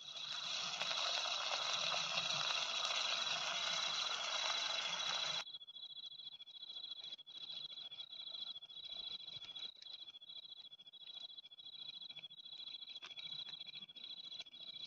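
Food sizzling in a frying pan on a portable gas stove for about five seconds, stopping abruptly. Crickets keep up a steady pulsing trill throughout, with a few faint clicks of handling.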